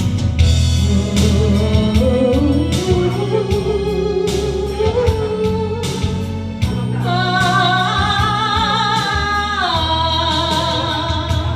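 Trot song's band accompaniment in an instrumental break: a steady beat under a lead melody that climbs, then holds a long wavering note that steps down near the end.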